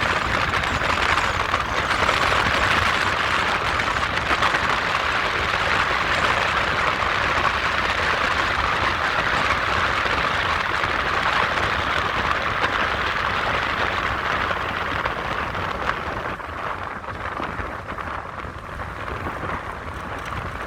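A steady rushing noise that eases somewhat in the last few seconds.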